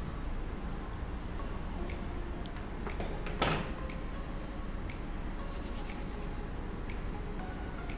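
A plastic gumpaste modelling tool set down on a plastic cutting mat with one sharp tap about three and a half seconds in, amid faint handling clicks over a steady low room hum.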